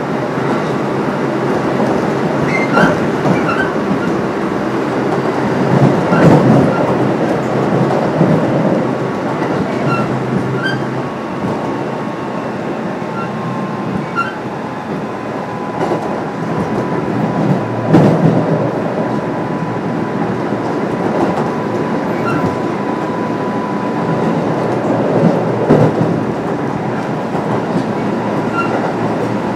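Kintetsu 7000 series electric train (set HL07, Mitsubishi IGBT-VVVF) running between stations, heard from inside the car: a steady loud rumble of wheels on rail with scattered knocks from the track. The knocks are loudest about six seconds in, around eighteen seconds and near the end. A thin steady tone carries through the middle stretch.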